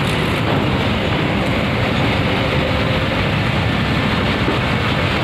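Diesel engine of a coach bus running as it climbs the ferry's steel loading ramp, a steady heavy rumble.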